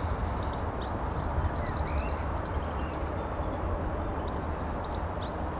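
Small birds chirping in short, quick series of high notes, a few times over, above a steady low rumble.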